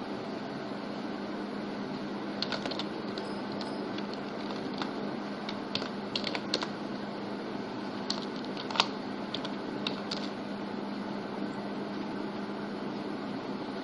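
Computer keyboard keys tapped in short irregular runs, a dozen or so sharp clicks spread over several seconds, over a steady low hum.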